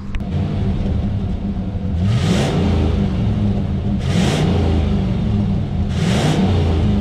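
Ford F-150's 5.0-litre V8 heard from behind at the tailpipe, idling and revved hard to the limiter three times, each rev a quick rise in pitch that falls back to idle, with a fourth starting near the end.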